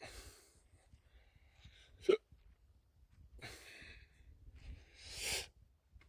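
A person breathing close to the microphone: three noisy breaths a couple of seconds apart, with one short sharp sound about two seconds in.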